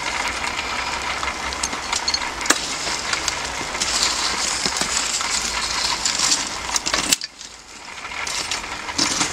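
Burning lumps of charcoal being stirred and shaken up with a tool in a charcoal rotisserie grill: a busy run of clinks, crackles and scrapes. It cuts off abruptly about seven seconds in.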